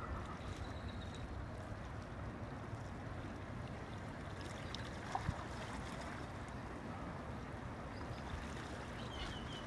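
Large oil tanker passing close by: a steady low rumble with an even hiss that does not change. Faint high chirps sound near the start and again near the end, and there is a single soft tick about five seconds in.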